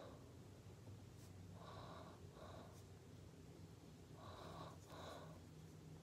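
Near silence: room tone with a faint steady low hum and a few soft paired rustles.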